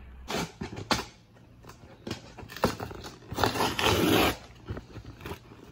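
Packing tape and cardboard flaps being torn open on a cardboard shipping box: a few short rips, then a longer, louder tearing sound about three and a half seconds in.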